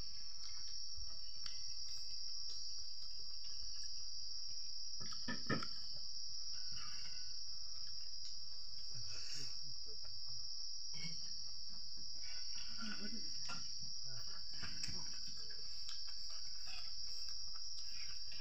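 Steady high-pitched insect chorus droning without a break, with a few soft clicks and wet handling sounds from someone eating by hand out of a metal bowl.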